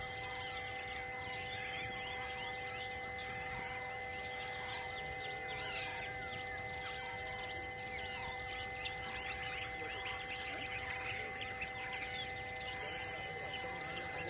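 Forest ambience: birds chirping and calling over a steady insect drone, with a high chirp repeating at an even pace. Two loud, high whistled bird calls come close together about ten seconds in.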